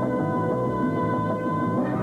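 Background music with sustained held chords, shifting to a new chord near the end.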